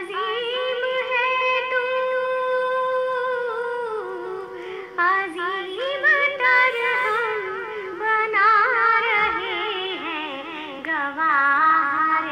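Pakistani patriotic song (milli naghma) sung by a high voice. The voice holds one long note for the first few seconds, then moves through ornamented phrases with a wavering pitch over soft accompaniment.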